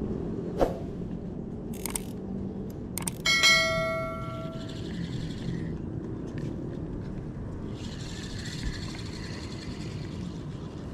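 Fishing rod and spinning reel being handled: a few sharp knocks and clicks, then, about three and a half seconds in, one metallic strike that rings with several clear tones and fades over about a second. A steady low rumble runs underneath.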